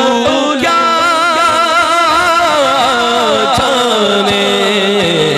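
A man singing a naat into a microphone, drawing out a long, wavering melismatic phrase without clear words; the held note sinks lower in pitch through the second half.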